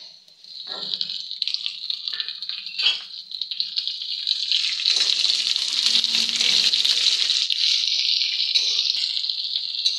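Sliced onion being added to hot oil in a kadhai and sizzling. The sizzle swells loud about halfway in as the onion meets the oil, with a few light clicks before it.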